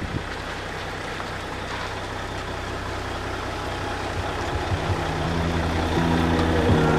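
Caterpillar 3406B diesel engine of a 1990 Peterbilt 379 semi tractor running at low speed as the truck rolls in. It grows steadily louder as it comes closer.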